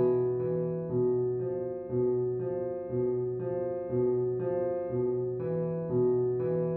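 Music: a piano playing a slow, repeating pattern of notes, about two notes a second, over sustained low notes.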